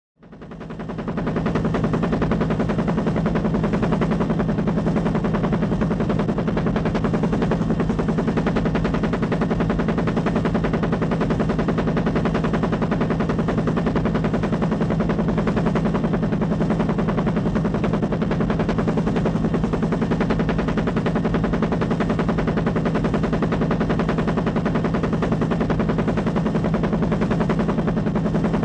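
A steady, very rapid pulsing sound, like a fast mechanical rattle, that fades in over about a second and a half and then runs on unchanged.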